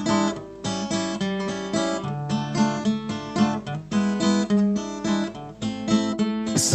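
Acoustic guitar playing alone, with no singing: a run of plucked and strummed notes and chords.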